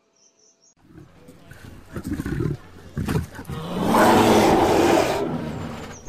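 A bear growling: a few short growls, then a long, louder growl about four seconds in that fades away.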